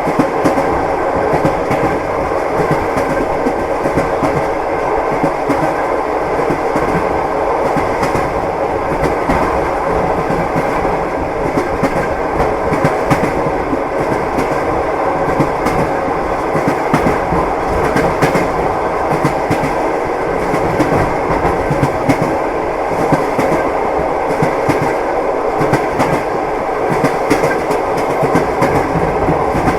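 Train wheels knocking over the rail joints, clickety-clack, over a steady rolling rumble of the moving train.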